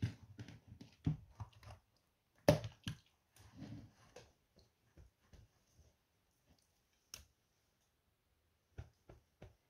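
Raw chicken breast fillets being handled and laid into a glass baking dish: scattered soft slaps and light taps, the loudest about two and a half seconds in, with a few sharp clicks near the end.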